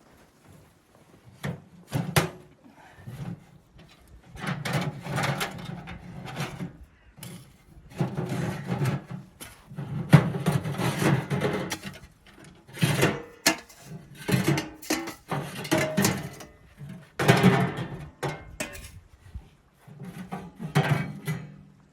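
Pieces of firewood being handled: irregular bursts of wooden knocking, rubbing and scraping with short pauses between them.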